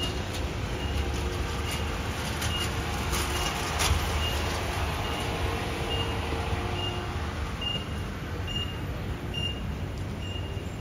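Steady street background noise with a short, high electronic beep repeating evenly, about three beeps every two seconds, like a warning or reversing beeper.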